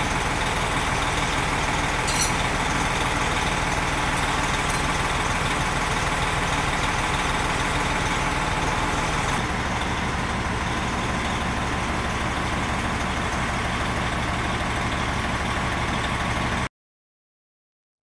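Peterbilt 389's Cat 6NZ diesel engine idling steadily while the truck's air system builds pressure. The sound cuts off suddenly near the end.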